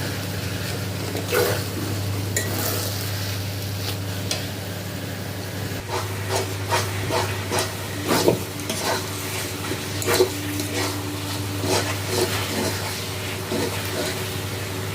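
Ground raw turmeric frying in ghee and oil in a pan, sizzling, while a spoon stirs it and scrapes and knocks against the pan at an irregular pace, busier from about six seconds in. A steady low hum runs underneath.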